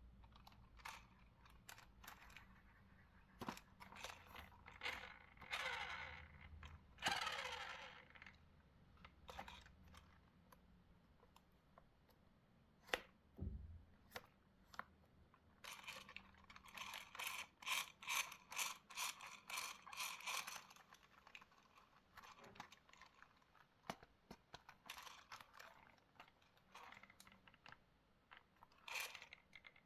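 Faint handling noises from unboxing a toy RC quad: scattered clicks and taps of plastic parts, with two longer stretches of rustling and scraping packaging.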